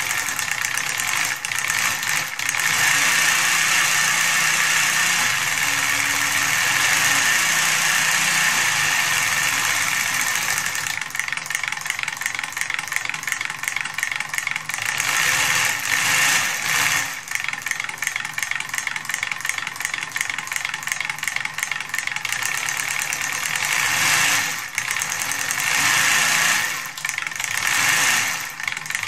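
3D-printed V8 solenoid engine running: its eight 12 V solenoids clatter in rapid succession as the printed crankshaft and flywheel spin. The clatter speeds up and slows down as the throttle pedal is pressed and released, and runs fast near the end.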